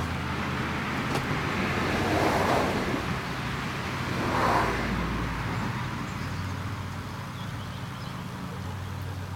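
Road traffic noise: vehicles passing, swelling twice about two and a half and four and a half seconds in, over a steady low hum.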